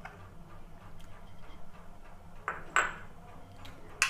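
A spoon clinking against a bowl: two sharp clinks about two and a half seconds in, the second ringing, and another at the very end, over a low steady hum.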